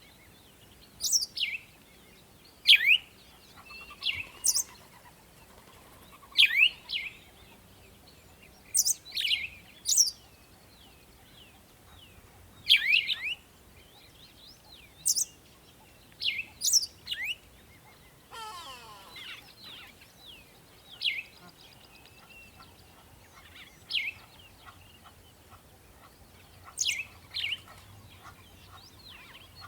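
Birds chirping: short, sharp, downward-sweeping calls repeated every second or two. A lower, longer sweeping call comes about two-thirds of the way through.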